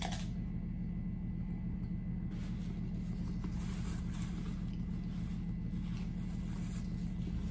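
Steady low hum throughout. A short crunch of a bite at the very start. From about two seconds in, faint crinkling of a paper napkin being rubbed over mouth and hands, with chewing.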